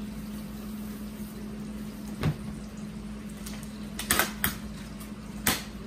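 Cardboard packaging of a speaker box being handled as its tabs are pulled and it slides open: several sharp knocks and taps, a cluster of them about two-thirds of the way in, over a steady low hum.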